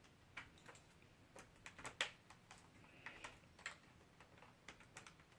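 Faint, irregular light clicks and ticks of a screwdriver and small screws working against a laptop's plastic casing, the sharpest click about two seconds in.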